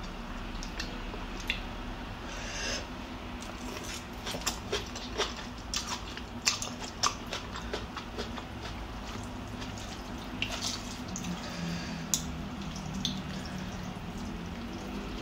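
Eating pho noodle soup close to the microphone: a metal spoon and chopsticks clicking in the bowl, broth sipped and noodles slurped, with wet mouth sounds. Short clicks come irregularly throughout over a low steady hum.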